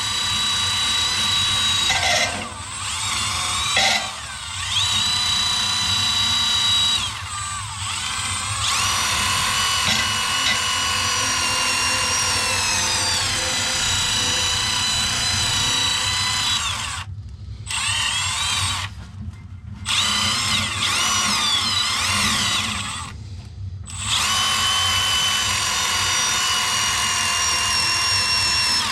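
A power drill runs under load in spells, its whine sagging and rising in pitch as it bears down, stopping and restarting several times. It is being used to clean up a rusty blower motor shaft.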